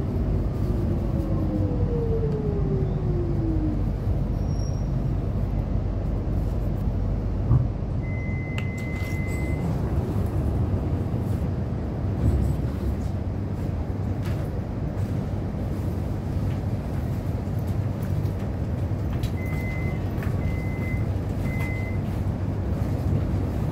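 Electric suburban train heard from inside the carriage: the motor whine falls in pitch over the first few seconds as the train slows. A steady low rumble and hum follow. A long single electronic tone sounds about eight seconds in, and three short electronic beeps sound near the end.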